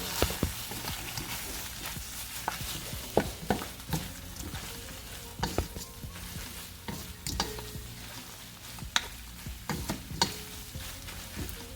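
Rice noodles and egg being stir-fried in a hot pan: a steady sizzle under irregular scrapes and knocks of a utensil against the pan as they are tossed and mixed.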